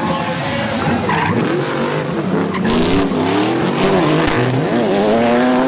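Drift cars sliding in tandem, their tyres squealing as the engines rev up and down hard through the slide.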